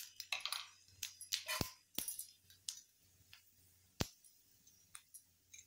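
Panch phoron spice seeds crackling in hot mustard oil: scattered sharp pops, with short sizzles in the first couple of seconds.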